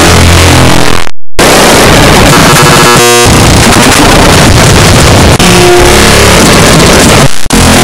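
Very loud, dense electronic noise, harsh and distorted, that cuts out completely for a moment about a second in. A short buzzing tone breaks through about three seconds in, and the noise drops out briefly again near the end.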